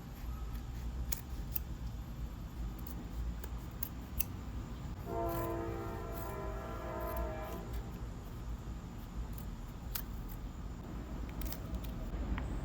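Scattered small clicks and handling noises over a low rumble, with a horn sounding once for about two and a half seconds near the middle.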